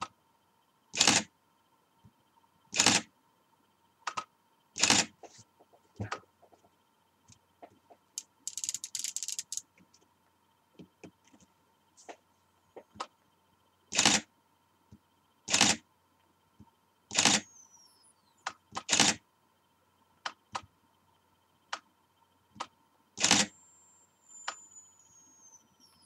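A Nikon SB-700 speedlight firing about eight times, each a sharp click with gaps of one to several seconds, with a short buzz about a third of the way through. A faint steady whine runs underneath, and after two of the flashes a thin high whistle glides down in pitch: the whistling of the flash's charging circuit, which the owner cannot tell is normal or a fault.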